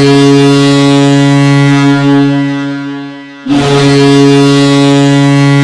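Fischtown Penguins' ice hockey goal horn, a fake horn sound rather than a real air horn. One long, low, steady blast fades away, and a second blast starts sharply about three and a half seconds in.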